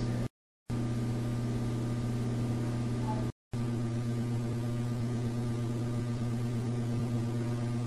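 Low steady hum with a stack of even overtones, cut off dead twice, near the start and again about three and a half seconds in. The investigators hear in it a faint, far-off voice they cannot make out.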